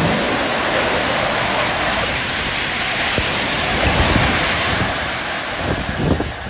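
Loud, steady rushing of water, an even noise with no break.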